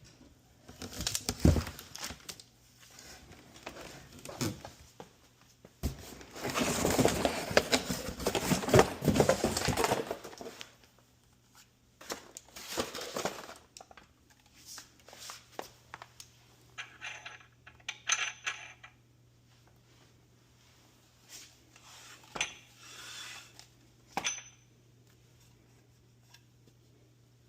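Unboxing noise from a new pressure washer: packaging rustling and being torn open, with knocks and clinks as plastic and metal parts are handled. There is a long spell of rustling early on and scattered clinks and taps later.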